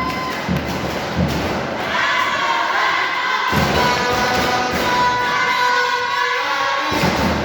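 Music with a thumping beat and held, singing-like tones, mixed with crowd voices.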